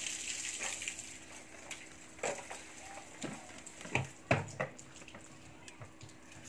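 A small knife peeling and scraping a fruit by hand: a few short, separate scrapes and knocks, the clearest about two to four and a half seconds in, over a faint steady hum.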